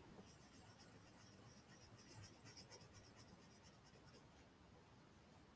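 Faint scratching of a crayon colouring in small circles on a paper worksheet.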